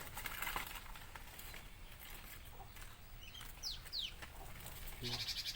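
Birds calling in a mixed aviary: bantam chickens clucking, and a few short, high chirps from a smaller bird about three and a half seconds in.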